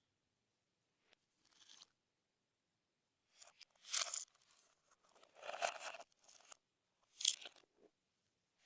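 Slime being mixed and squished, heard as a handful of short, noisy squishing and crackling bursts with quiet gaps between them.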